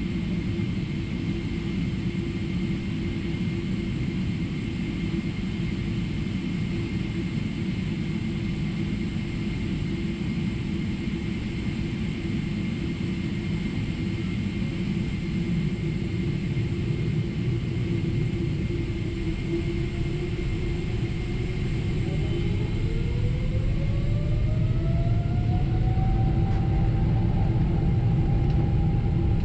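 Cabin noise inside a Boeing 777-300ER: a steady low rumble with a faint steady engine whine. About two-thirds of the way through, the GE90 engines spool up: the whine rises in pitch over a few seconds, then holds, and the rumble grows a little louder.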